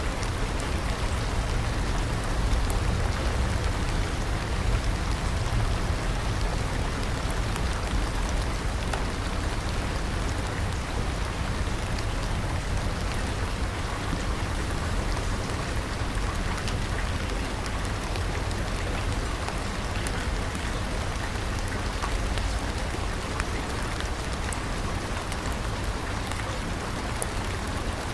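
Steady heavy rain falling on a surface, an even hiss with a deep low rumble underneath and scattered drop ticks, unchanging throughout.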